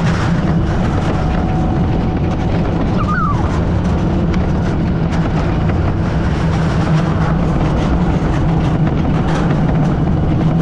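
Wiegand bobkart running along its track: a steady, loud rumble of its wheels on the rail.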